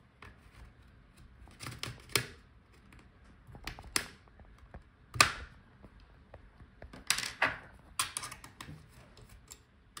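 Bottom cover of a Lenovo ThinkPad E14 Gen 5 being pried off with a plastic pry tool: sharp clicks and snaps as the cover's plastic clips pop loose along the edge, a few spaced singly and then several in quick succession near the end.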